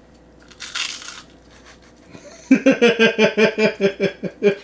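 A man laughing hard in quick, even bursts from about two and a half seconds in, after a short crunch of a bite into a crisp deep-fried chip about half a second in.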